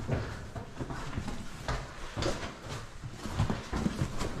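Footsteps and boot scuffs on loose rock and rubble as several people scramble and walk: a string of irregular crunches and knocks.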